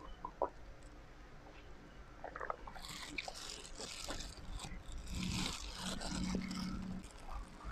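Clear plastic food gloves crinkling and rustling as hands pull apart steamed chicken, with a single sharp tap just under half a second in. A low steady hum joins past the middle.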